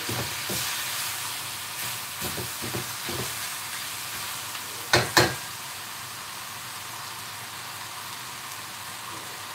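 Stir-fry of noodles and vegetables sizzling steadily in a wok, stirred and tossed with a spaghetti server and wooden spatula, with soft scraping knocks for the first few seconds. Two sharp knocks come about five seconds in.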